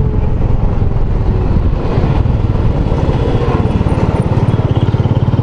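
Royal Enfield Bullet 350's single-cylinder engine running steadily under way on the highway. Its exhaust beat becomes more even about four seconds in.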